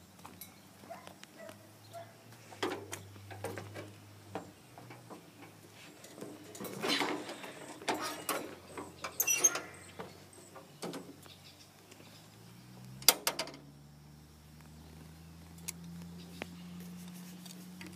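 Footsteps, rustling and scattered small clicks and knocks as someone walks up to a garden tractor, sits on it and handles its controls, with one sharp click about thirteen seconds in. A faint low hum runs underneath and rises slightly in pitch near the end.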